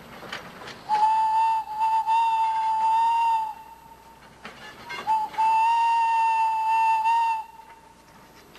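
Steam whistle of the B&O Lafayette replica locomotive sounding two long blasts, each about two and a half seconds of one steady high tone, with a short break between them. Two long blasts is the whistle signal to release brakes and proceed.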